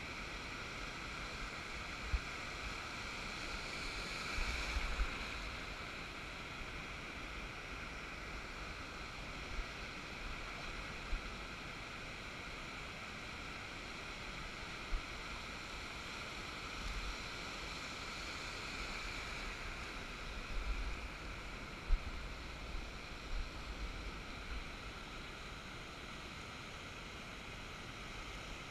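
Steady wash of surf around the wading angler, with wind buffeting the microphone in low rumbles now and then and a few sharp knocks.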